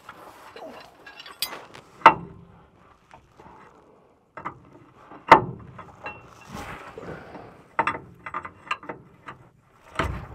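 Hand-tool work on metal truck fittings: scattered clicks and clinks, with three louder sharp knocks about two, five and ten seconds in.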